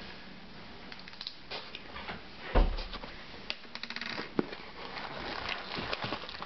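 Cardboard parcel box being opened by hand: flaps bending and scraping, with scattered rustling and small clicks. A single heavy thump about two and a half seconds in, and a run of crinkling just after.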